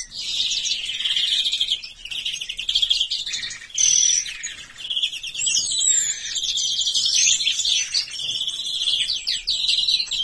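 European greenfinch singing: a continuous run of rapid twittering trills, with a few swooping whistled notes about six seconds in.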